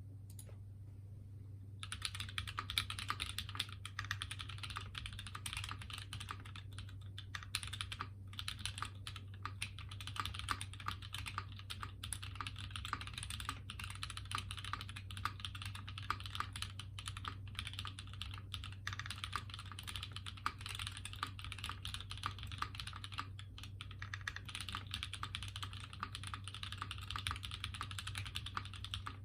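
Continuous fast typing on a CableCarDesign Prophet 60% HHKB mechanical keyboard with lubed and filmed Cow switches, a nylon half plate and GMK keycaps, starting about two seconds in. A steady low hum runs underneath.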